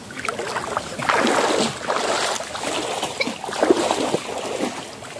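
Shallow stream water splashing and sloshing as people sit and move about in it, irregular and louder from about a second in.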